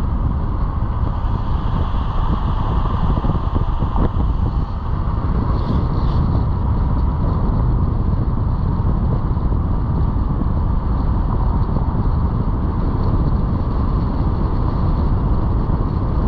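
Steady rumble of a car driving: engine and road noise, heavy in the low end.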